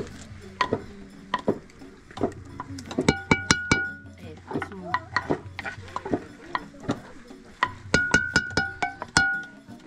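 Wooden spoon knocking and scraping against an aluminium cooking pot as spice paste is tapped off it into the raw meat and stirred. The knocks are irregular, with two quick clusters that ring, about three seconds in and again about eight seconds in.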